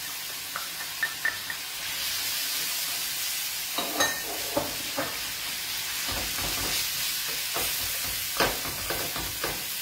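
Wild broccoli and taggiasche olives sizzling in hot oil in a frying pan, the sizzle growing louder about two seconds in. From about four seconds on a utensil stirs the pan, with short knocks and scrapes against the metal.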